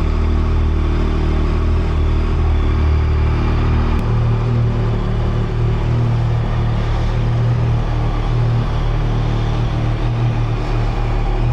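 Yamaha MT-09 SP's 890 cc three-cylinder engine idling through its stock exhaust, a steady, quiet hum. About four seconds in, the low note steps up slightly in pitch.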